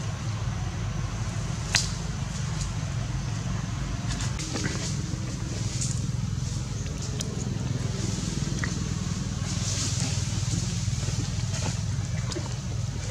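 Steady low outdoor rumble with scattered light clicks and crackles, one sharper click about two seconds in.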